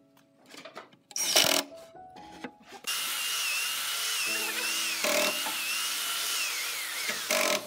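Cordless drill-driver driving screws into wood: a short burst about a second in, then a longer run of several seconds with a wavering motor whine. Background music plays underneath.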